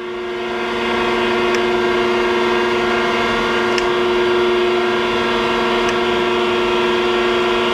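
Thompson hydraulic surface grinder running with its table traversing under hydraulic power: a steady humming whine of several held tones. Faint clicks come about every two seconds as the table reverses and the automatic crossfeed steps.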